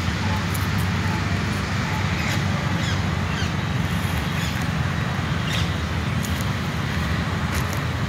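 Steady low rumble of outdoor background noise, with a few short, faint bird chirps scattered through it.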